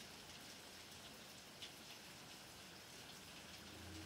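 Light rain falling: a faint, even hiss with scattered individual drop ticks. A brief low hum rises near the end.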